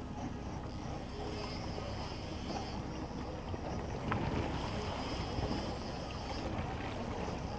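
Steady drone of a charter boat at sea: the engine running at idle with wind noise on the microphone.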